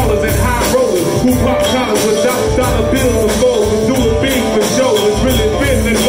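Live bluegrass hip-hop band playing: acoustic guitar, banjo and fiddle over a steady beat.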